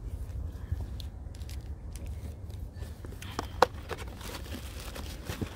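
Wood bonfire crackling, with scattered pops that come thicker in the second half and one sharp snap about three and a half seconds in, over a steady low rumble.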